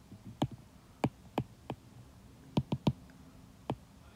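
A stylus tapping on a tablet's glass screen while handwriting, about eight sharp, irregularly spaced ticks.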